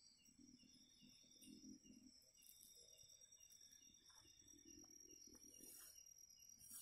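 Faint night insect chorus: steady high-pitched trilling with a small chirp repeating about three times a second.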